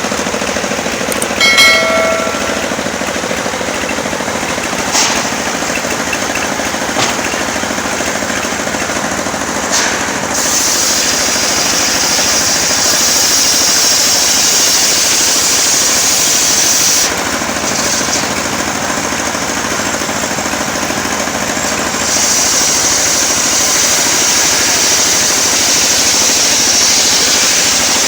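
Engine-driven circular sawmill running steadily, its blade ripping lengthwise through a coconut-wood log: a strong high hiss rises over the engine for several seconds from about a third of the way in and again over the last quarter. A brief ringing squeal and a loud knock come just after the start, with a few sharp clicks.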